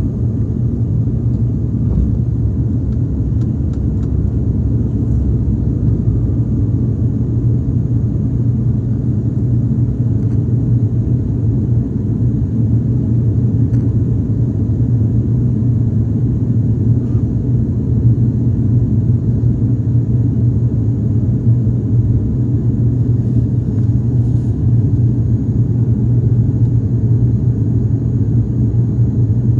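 Steady drone of an aircraft's engines heard from inside the cabin after takeoff: a constant low hum with a rumble beneath it.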